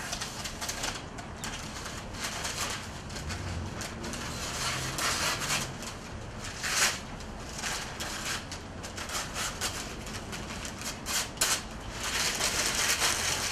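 Parchment paper rustling and crinkling in uneven bursts as it is handled and cut with a knife, loudest about halfway through and again near the end.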